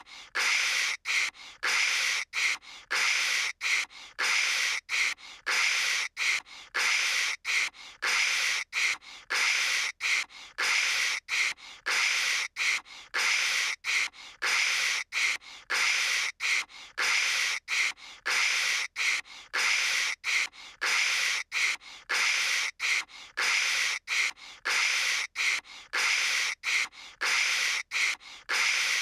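A voice imitating phone static with the mouth: short hissing 'kshh' bursts repeated over and over, about one and a half a second, with brief gaps between them.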